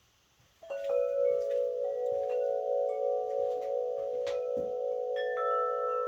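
Chimes ringing: from a little over half a second in, bell-like notes are struck one after another, each ringing on so that they overlap, with higher notes joining later.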